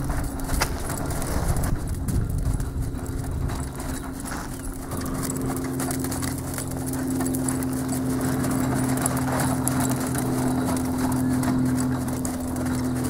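Hoofbeats of a horse trotting on arena sand, over a steady low mechanical hum.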